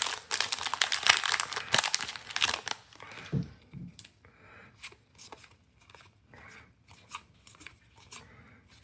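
Foil booster pack wrapper being torn open and crinkled, dense and crackly for about the first three seconds, then scattered soft clicks and rustles from the cards being handled.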